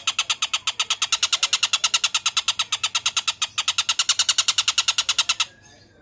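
An Oriental dollarbird (tengkek buto) gives its harsh, rapid chattering call, about a dozen rough notes a second. The chatter breaks briefly about three and a half seconds in and stops about half a second before the end.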